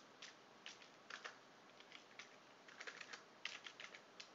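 Faint typing on a computer keyboard: irregular keystrokes, some in quick runs of two or three.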